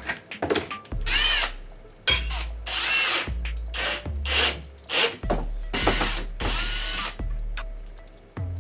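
A power tool running in a series of short bursts, over background music with a steady, stepping bass line.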